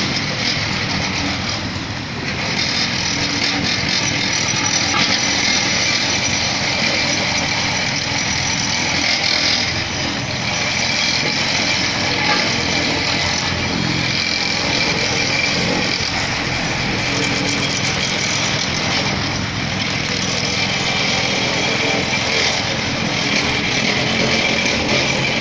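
Road-repair machinery's engine running steadily under a continuous hiss, with no change in pace.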